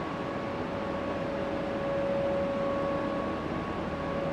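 Steady mechanical hum and hiss of a train station platform hall, with a constant mid-pitched tone and a fainter higher tone above it.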